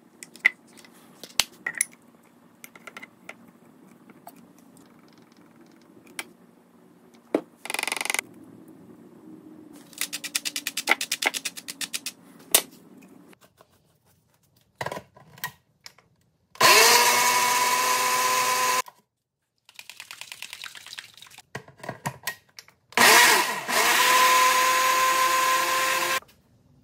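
Ninja Professional blender with its small single-serve cup blending salad dressing in two runs, the first about 2 s and the second about 3 s. Each time the motor spins up with a rising whine, then runs steady. Before that there are small clicks and taps as ingredients go into the plastic cup and the blade lid is fitted.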